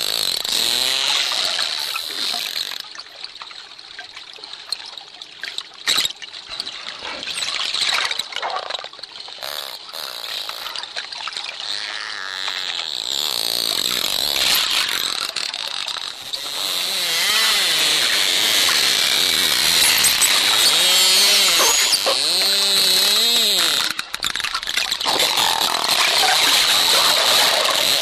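Dolphins calling underwater: dense clicking and buzzing click trains mixed with squeaky whistles that wave up and down in pitch. It grows louder about halfway through.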